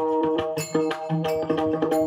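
Pakhawaj drumming in quick strokes over steady held notes from an accompanying instrument, an instrumental passage of a Warkari devotional song.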